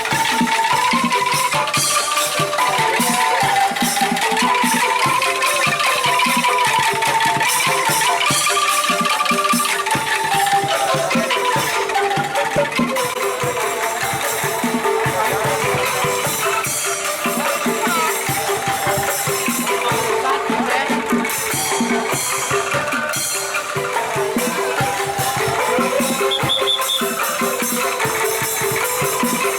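Loud music played through a large sound system during a sound check: a wavering melody over dense, fast shaker-like percussion.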